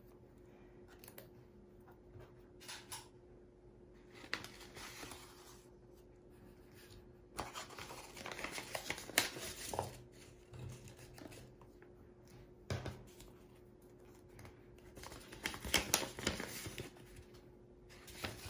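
Rustling and crinkling of paper as a kraft-paper envelope and paper stickers are handled, with stickers pressed onto a notebook page. The rustling comes in short patches, with two longer, louder stretches about halfway through and near the end.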